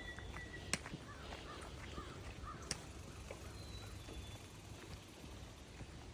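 Faint bird calls, a short run of repeated calls that sounds like distant cawing, over a steady low outdoor rumble, with a few sharp clicks.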